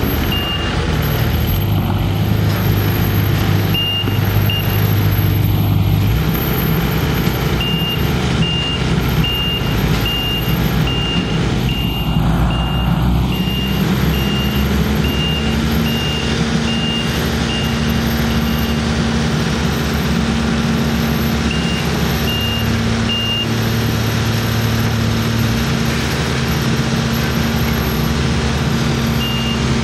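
Heavy machinery engines running, with a backup alarm beeping in runs: a long stretch of steady, evenly spaced beeps in the middle and shorter runs elsewhere. About fourteen seconds in, an engine speeds up and holds a higher pitch.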